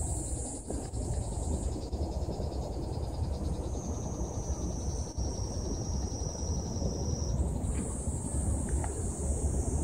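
A steady, high-pitched chorus of insects calling, with a second, lower-pitched insect call joining from about four seconds in until about seven. A low, gusty rumble of wind on the microphone runs underneath.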